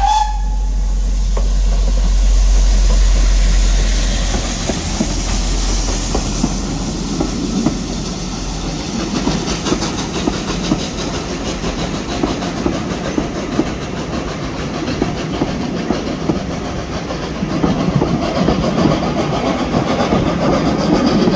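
Two steam locomotives passing with a hiss of steam, followed by a train of coaches rolling by with a steady clickety-clack of wheels over the rail joints.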